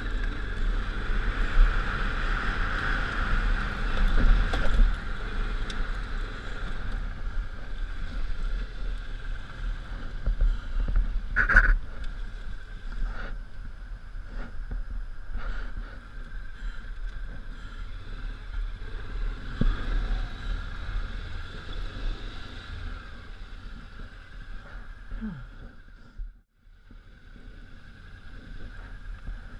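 Honda Africa Twin's 750 cc V-twin engine running as the motorcycle rides rough offroad trails, with a deep rumble, wind and occasional sharp knocks from bumps. Near the end the sound briefly cuts out almost completely, then returns.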